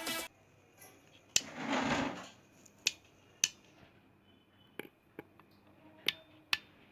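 Workbench handling noise: scattered sharp clicks and light knocks, with a short rushing scrape about a second and a half in.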